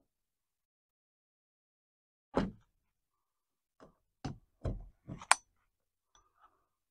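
Hammer blows on an improvised firing pin held against a .22 cartridge in a 3D-printed barrel: six separate sharp knocks, spaced unevenly. The last, about five seconds in, is the loudest and rings metallically.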